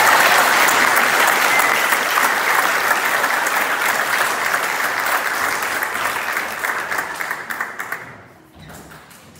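An audience clapping, a dense steady patter of many hands that dies away about eight seconds in.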